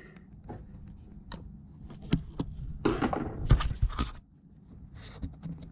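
Scattered metallic clicks and knocks of hand tools and parts being handled in an engine bay, with a denser clatter about three to four seconds in.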